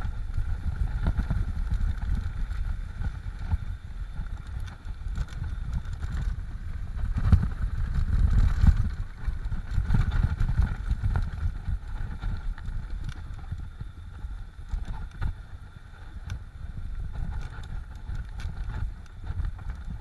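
Mountain bike rolling fast down a rough dirt trail, heard from a handlebar-mounted camera: wind buffeting the microphone, with the clatter and rattle of the bike and tyres over the ground. It eases off over the last few seconds as the bike slows.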